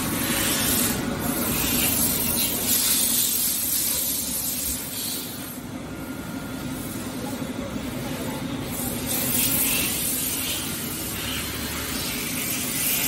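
Steady machine-shop noise: CNC machines and a large pedestal fan running, a low hum under a hiss that fades around the middle and comes back.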